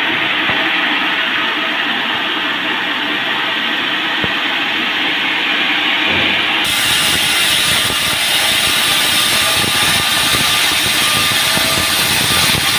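Band sawmill running as it cuts a large teak log: a steady mechanical noise with a faint steady hum in it. A little past halfway the sound abruptly becomes fuller and brighter.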